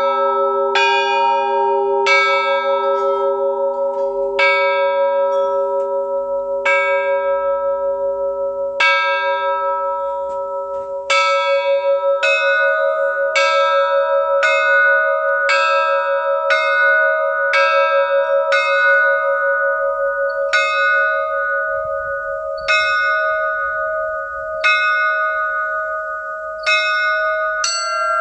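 Russian church bells rung as a perezvon, one bell at a time with single strokes, each note ringing on into the next. The strokes come about every two seconds at first, then about one a second. Partway through, the ringing moves up to a higher bell as a lower bell's hum dies away.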